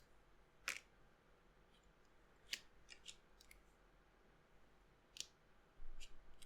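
A few faint, sharp plastic clicks spread over several seconds, from keycaps being handled and pushed onto mechanical keyboard switches, with near silence between them.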